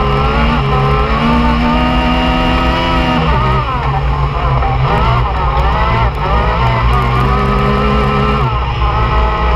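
Yamaha YXZ1000R UTV's three-cylinder engine heard from the cockpit, revving hard at racing pace and rising and falling repeatedly. The pitch drops sharply about three seconds in and again near the end as the driver lifts off or shifts, then climbs back.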